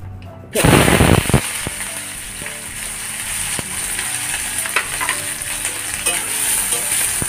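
Sliced onions hitting hot oil in an aluminium kadai: a sudden loud sizzle about half a second in that settles into a steady frying hiss. A metal spatula clicks and scrapes against the pan now and then as the onions are stirred.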